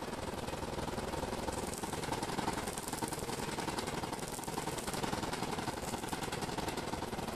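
Stick (shielded metal arc) welding on a steel frame: the arc crackles and sputters steadily as the electrode burns.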